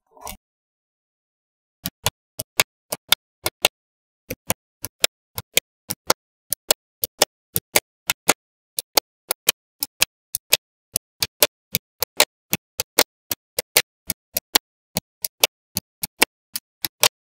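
Small magnetic balls snapping onto one another one at a time, a run of sharp clicks about two to three a second that starts about two seconds in.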